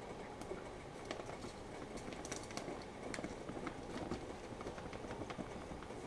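Faint steady noise with scattered light clicks and taps, from handling at a sous vide water bath while the chicken is being taken out.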